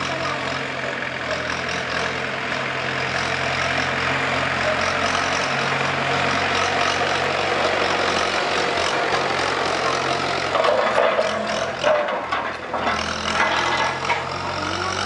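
Farm tractor's diesel engine running steadily as it tows a steel land roller across a field. Irregular knocks and rattles come in over the last few seconds.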